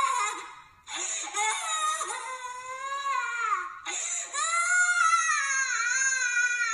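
A person crying in long, high-pitched wavering wails, broken by short gasps for breath just under a second in and again near four seconds.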